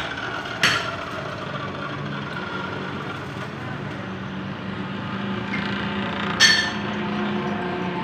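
Two hammer blows on steel, one about half a second in and one near the end, each ringing briefly, over a steady low hum.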